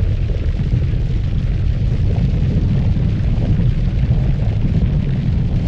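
Continuous deep rumbling of a volcanic eruption, steady and loud throughout with no distinct separate blasts.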